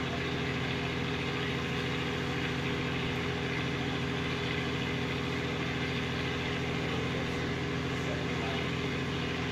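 A steady mechanical hum at an unchanging pitch, like a motor running at constant speed, with an even background noise over it.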